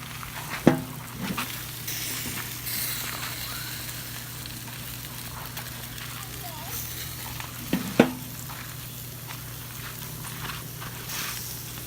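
Food sizzling on a camp grill, a steady hiss over a low hum, with two sharp knocks: one about a second in and another some seven seconds later.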